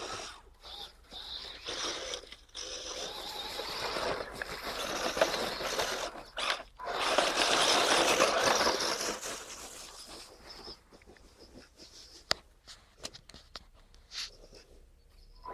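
Tamiya radio-controlled truck driving over rough ground: its tyres crunch and scrape in long stretches that stop and start. After about ten seconds it goes quieter, with scattered clicks and knocks.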